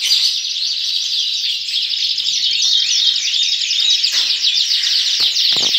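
A dense chorus of many caged canaries and other small cage birds chirping and singing at once, thick and unbroken, with a couple of light knocks near the end.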